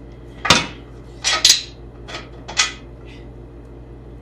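Steel suspension parts and tools clanking together during disassembly of a car chassis's front suspension: about five sharp metal knocks in two seconds, the first the loudest.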